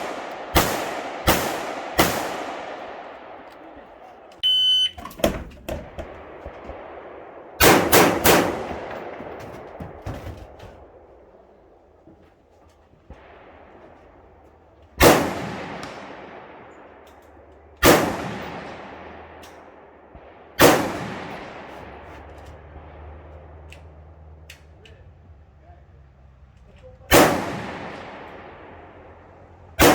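Rifle shots with long echoing tails. Three come in quick succession at the start and another fast group of three comes around eight seconds in. After that, single shots are spaced about three to six seconds apart. About five seconds in there is a brief high ringing tone.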